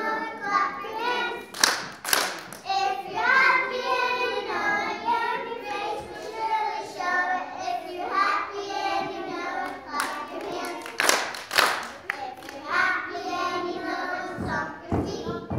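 A group of young children singing a song together. Sharp hand claps break through the singing twice, about two seconds in and again about eleven seconds in.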